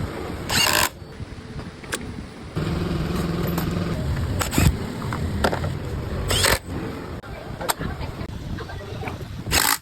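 Motorcycle engine with a damaged camshaft, running; it comes in abruptly about two and a half seconds in. A few short rushing noises come and go around it.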